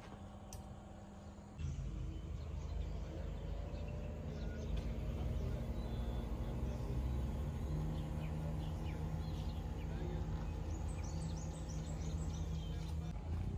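Birds chirping repeatedly, most often near the end, over a steady low rumble that comes in abruptly about two seconds in.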